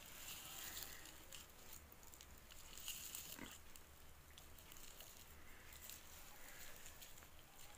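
Faint, scattered crinkling and rustling of plastic-bag strips being crocheted with a hook.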